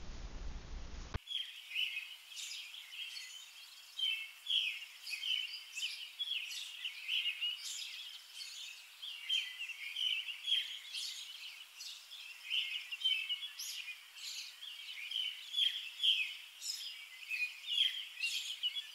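Birds chirping: many short, overlapping calls in a steady chorus, thin-sounding with no low end, starting about a second in.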